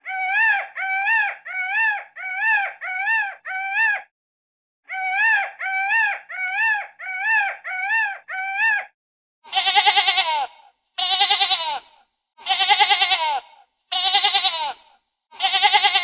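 Peacock giving two runs of six short, rising-and-falling honking calls, then five longer, wavering bleats from goats and sheep.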